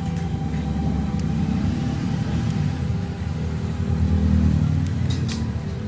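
A low rumble under steady sustained tones. About five seconds in come a few sharp clicks as a phone's plastic back cover is pressed into place.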